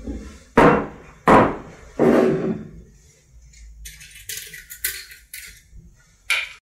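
Glass tumblers set down on a wooden table: three knocks about 0.7 s apart, the last ringing on longer. From about four seconds in, a run of short high scraping sounds.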